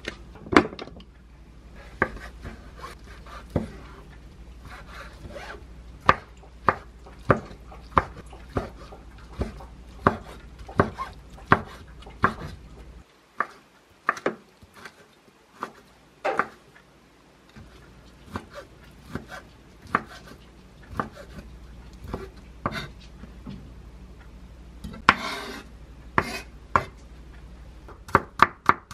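Chef's knife chopping on a wooden cutting board: sharp knocks about one or two a second as fried tofu pouches and sliced duck meat are cut small. Near the end comes a brief scrape, then a quicker run of chops.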